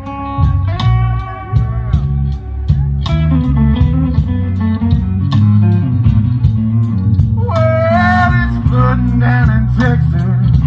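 Live blues band playing a slow blues. Electric lead guitar bends and wavers its notes over bass and drums, with a steady cymbal beat about three times a second.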